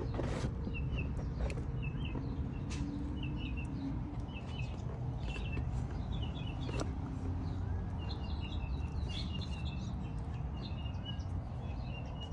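Small birds chirping in short, quick repeated phrases throughout, over a steady low rumble, with a couple of sharp clicks.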